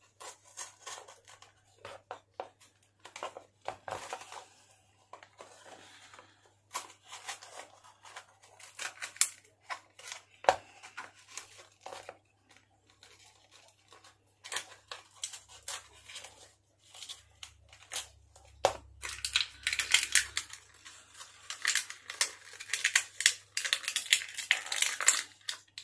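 Blister packet of clear plastic on a backing card being opened by hand: irregular crackling, crinkling and tearing, busiest and loudest over the last six seconds or so.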